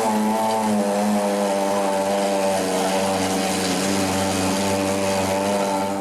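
Machinery of a waste plastic film washing and recycling line running with a loud, steady drone and a pitched motor whine.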